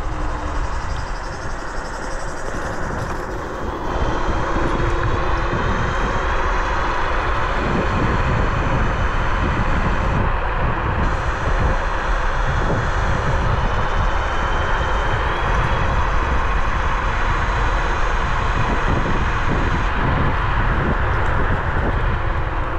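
Bluetran Lightning 72V electric scooter in motion: a steady rush of wind on the microphone and tyre noise, with a faint high whine. The noise grows louder and the whine rises in pitch about four seconds in, as the scooter gathers speed.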